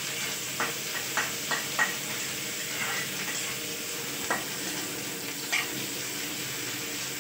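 Sliced onions and green chillies sizzling in hot oil in a steel kadhai, browning, while a metal spatula stirs them and scrapes or taps against the pan about seven times.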